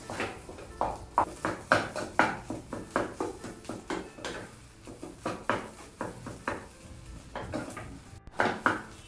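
A utensil scraping and knocking against a kadai as scrambling fish eggs are stirred and mixed. The strokes are short and come about two a second in an uneven rhythm.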